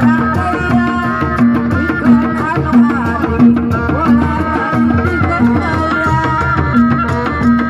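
Sundanese traditional street-procession music played loud: hand drums keeping a driving beat, a low note struck about three times every two seconds, and a wavering high melody over the top.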